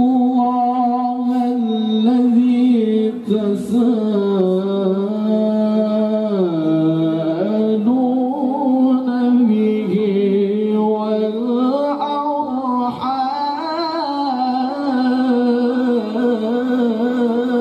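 A man reciting the Quran in melodic tilawah style into a microphone. He sings one long ornamented phrase without a break, and his pitch sinks low about seven seconds in and climbs again a few seconds later.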